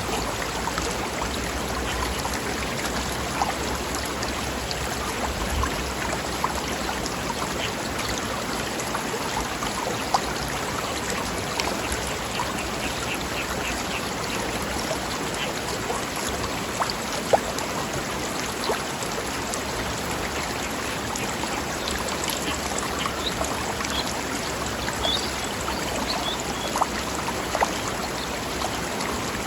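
Mountain stream flowing over rocks: a steady rush of running water with scattered small splashes. A few faint bird chirps come in near the end.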